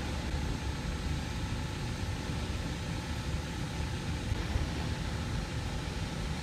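Steady low rumble of ice-rink room noise, with a fainter hiss over it that fits skate blades gliding on the ice.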